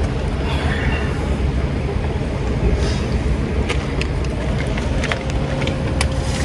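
A vehicle engine idling steadily, with a few light clicks and taps from about three seconds in.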